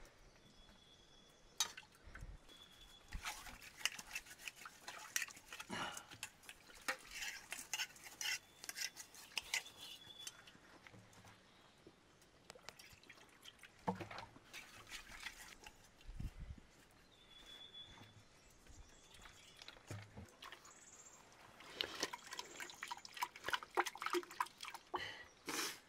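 Scattered light clinks, taps and knocks of pots and utensils, with some dripping and sloshing of liquid, as food is handled and stirred in a cooking pot.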